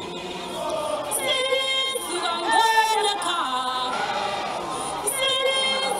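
A group of voices singing together without instruments, a choir-like melody in phrases that rise and fall.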